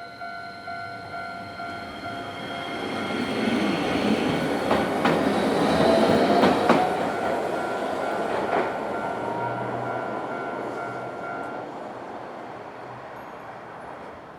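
Japanese level crossing alarm bell ringing in steady strokes as a Hankai Tramway streetcar passes over the crossing. The tram swells to its loudest about halfway through, its wheels clacking over rail joints with a short squeal, then fades. The bell stops a few seconds before the end.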